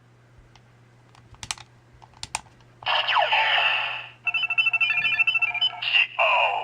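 DX Hibiki Ridewatch toy: a few plastic clicks from its buttons or dial, then electronic sound effects from its small speaker. About three seconds in comes a falling sweep, then a quick jingle of stepping beeps, and another falling sweep near the end.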